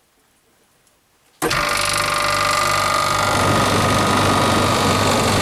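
A late-1960s Prestcold single-phase refrigeration compressor, about 1.5 hp, kicks in suddenly about a second and a half in and runs with a steady hum and fan rush. It has a newly fitted start capacitor, replacing one whose wire had broken off, after the unit had trouble starting.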